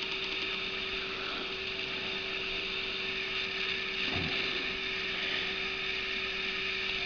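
Steady hiss with a constant low hum, and a faint knock about four seconds in.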